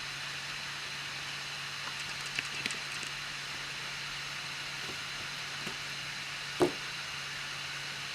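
Anycubic i3 Mega 3D printer running with a steady fan hiss and low hum. Its extruder clicks twice faintly about two and a half seconds in, then once louder about six and a half seconds in: the extruder drive gear skipping on filament it cannot push through.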